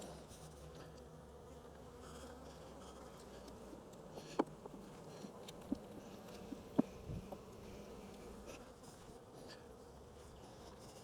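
Honey bees buzzing steadily around an open hive, with a few sharp clicks and a soft thump from handling the frames.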